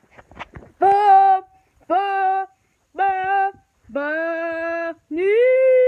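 A voice singing a short alert-style jingle of five held notes, sung in place of an emergency-alert tone: three short notes on one pitch, a longer slightly lower note, then a long higher note that slides up at its start.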